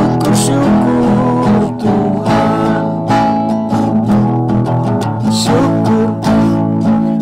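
Acoustic guitar strummed in a steady rhythm, playing chords as a song accompaniment.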